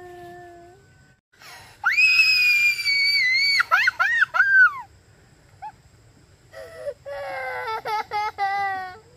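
A young girl crying in distress: a long, shrill scream about two seconds in that breaks into short sobbing cries, then a wavering, sobbing wail near the end.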